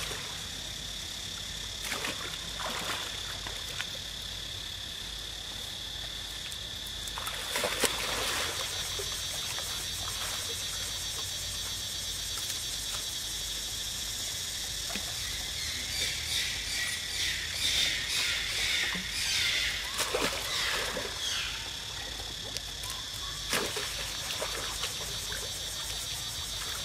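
Water splashing and sloshing as macaques swim and scramble in a stone pool, with a steady high insect drone running underneath. The splashing comes in scattered bursts and is busiest about two-thirds of the way through.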